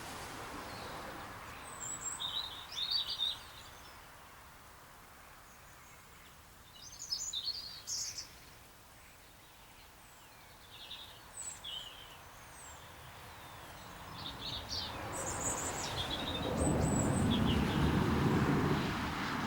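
Birds chirping in short, scattered calls, with a low rushing noise that swells up in the last few seconds.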